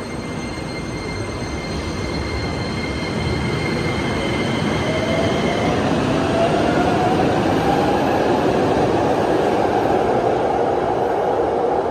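Subway train pulling out of the station, running louder over the first few seconds as it picks up speed. A whine from the electric traction equipment rises in pitch over the rumble of wheels on rail.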